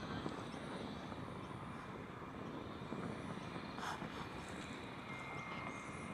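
Distant airliner engines running at low power as the aircraft taxis: a steady, low rumbling hum. A thin high tone joins in about five seconds in.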